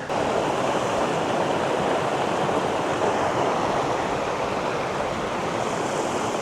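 Steady rushing noise of water, starting abruptly.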